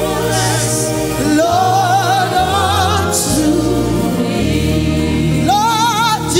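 Live gospel worship music: sung lines with a wide vibrato, backed by a choir and a band with a steady bass line.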